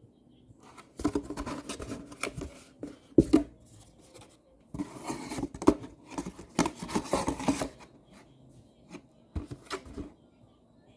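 Stiff paper file box being handled and folded, rustling and crinkling in three bursts with short pauses between them.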